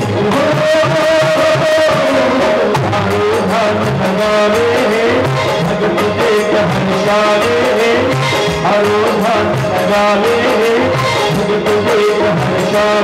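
A man singing a devotional song (bhajan) in praise of the Mother Goddess into a microphone, his melody wavering over a held accompanying tone, with instrumental accompaniment and a steady drum beat.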